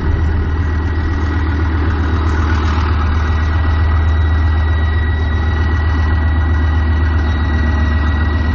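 Bergepanzer 2 armoured recovery vehicle's MTU V10 multi-fuel diesel running steadily, a deep engine note with a constant high whine over it, as the tracked vehicle works through deep mud.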